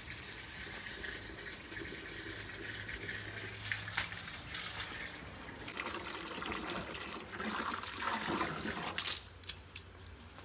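Water running from a rubber hose into a metal bucket, filling it; the stream stops a little before the end.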